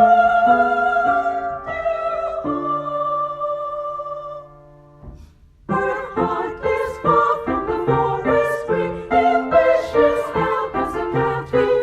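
Women's choir voices singing in parts with piano accompaniment, holding long chords with vibrato. The sound dies away about four and a half seconds in, and after a pause of about a second the voices and piano come back in.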